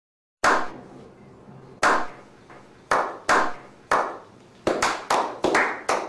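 A slow clap: hand claps begin after a brief silence, well over a second apart at first, then come quicker and closer together as more people join in, each with a short ring of reverb.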